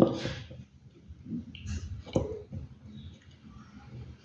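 Close-up crunching of dry clay: a crumbly crackling burst at the start, then a few short sharp crunches, the sharpest about two seconds in.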